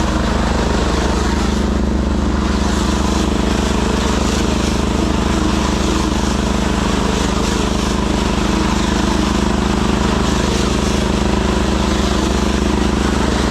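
Engine of a piece of farm machinery running steadily at constant speed, with no change in pitch.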